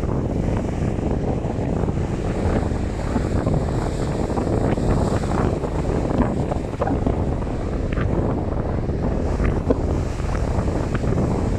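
Strong wind buffeting the microphone over rough sea surf, a loud, dense rush with no let-up.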